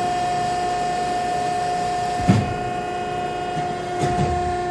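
Sheet metal press brake running with a steady whine. There is a low knock about two seconds in as the ram closes the 3D printed die on a 0.025-inch copper blank, and a softer bump near the end.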